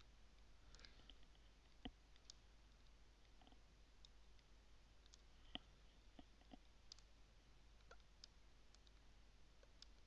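Faint computer mouse clicks at irregular intervals over near-silent room tone, two of them a little louder, about two and five and a half seconds in.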